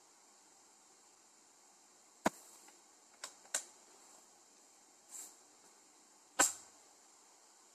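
Handling noise on a phone's microphone: a few sharp taps and knocks over a faint steady hiss, the loudest about two seconds in and another near the end, with a softer brushing sound between them.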